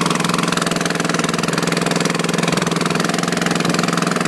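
Longtail boat engine running steadily at constant speed, a loud, even, fast-pulsing drone.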